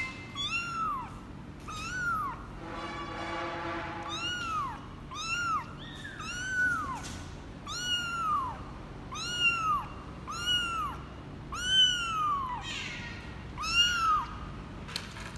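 A 24-day-old tabby kitten mewing over and over while held in a hand: high, arching mews, about one a second.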